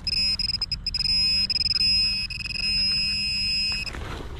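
Handheld metal-detecting pinpointer, an XP MI-6, sounding a continuous high buzzing tone held over a buried metal target in the hole. The tone wavers a little and cuts off shortly before the end.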